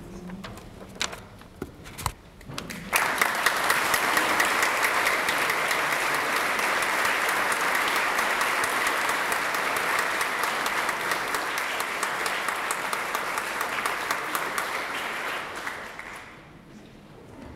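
Audience applauding, starting suddenly about three seconds in after a few scattered knocks, holding steady for some twelve seconds and dying away near the end.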